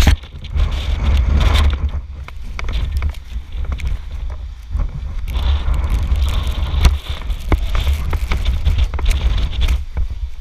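Strong wind buffeting the microphone: a heavy, gusting rumble with a hiss that swells and fades, and a few sharp clicks or knocks.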